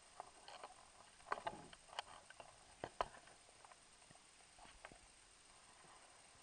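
Faint, irregular clicks and taps heard underwater, bunched together between about one and three seconds in, then a few scattered ones.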